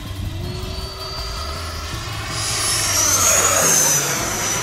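FMS Super Scorpion's 90mm electric ducted fan whining as the jet flies past. The high whine swells from about halfway through, is loudest near three-quarters of the way, and its pitch rises and then eases down as it goes by.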